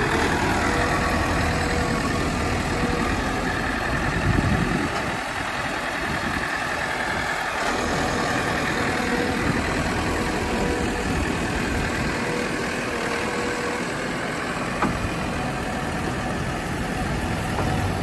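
JCB 214 Series 3 backhoe loader's diesel engine idling steadily.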